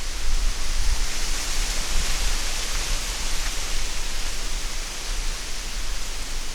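Steady hiss of wind through woodland trees, with a low rumble of wind on the microphone.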